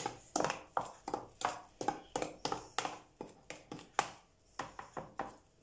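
A metal spoon stirring seasoned flour in a bowl, scraping and tapping against the bowl in quick strokes, about three a second, which stop shortly before the end.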